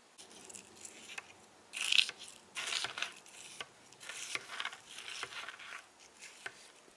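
A metal spoon scraping and stirring inside a plastic Chobani Flip yogurt cup, mixing crunchy toppings into the yogurt: a series of short scrapes and clicks in bursts.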